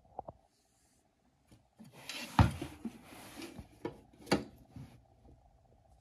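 Handling noise as a metal rack-mount power strip and its cord are moved and turned over on carpet, with two dull thumps, the louder one about two and a half seconds in and another about four seconds in.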